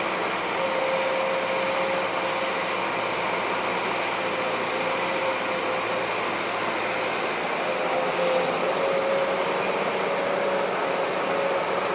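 Heavy diesel earthmoving machinery running steadily, with a constant mid-pitched whine over the engine noise.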